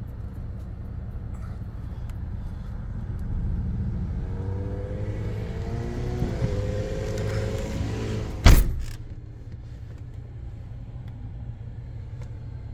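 Northstar 32-valve DOHC V8 of a 1998 Cadillac Eldorado idling, heard as a steady low rumble from inside the cabin. A single sharp knock about eight and a half seconds in is the loudest sound.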